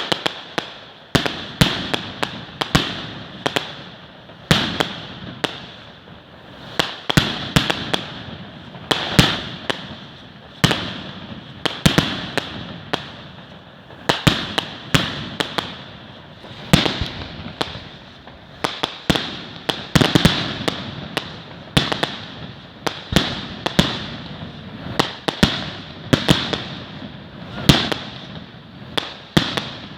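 Fireworks going off: an irregular run of sharp bangs, one or two a second, each trailing off in an echo, over a steady crackling hiss.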